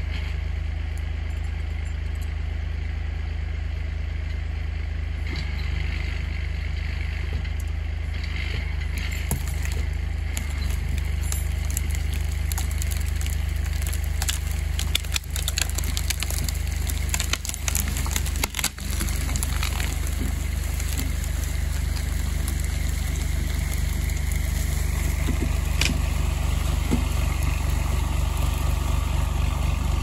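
Tractor engine running steadily near idle, driving a forestry cable winch that pulls out a windthrown log. Scattered sharp cracks and clicks come in the middle of the run.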